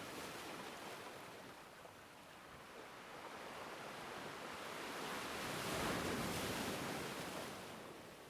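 Faint rushing of waves. It dips about two seconds in, then swells and fades away near the end.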